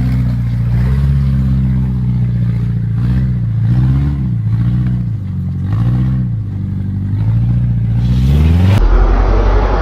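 Subaru flat-four engine revving up and down several times under load as the car works over a rocky off-road obstacle. Near the end it cuts abruptly to a louder, deeper engine rumble.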